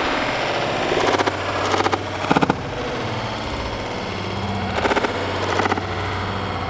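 Several bursts of rapid rattling fire from Nerf foam-ball blasters, ringing in a large empty hall over a steady low hum.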